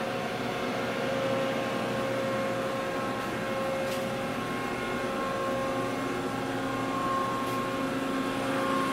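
Powered-up Mori Seiki TL-5A CNC lathe standing at idle: its hydraulic power unit's electric motor and pump run with a steady hum and a few steady whining tones.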